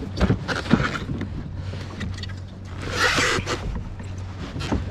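Knocks and scraping against a kayak, with a short rush of noise about three seconds in.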